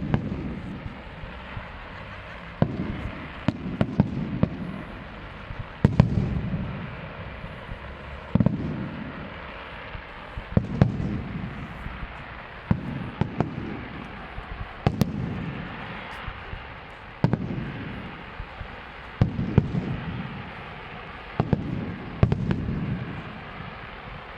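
Large display fireworks: aerial shells bursting in a steady sequence, a sharp bang or a quick cluster of bangs about every two seconds, each followed by a low rolling rumble.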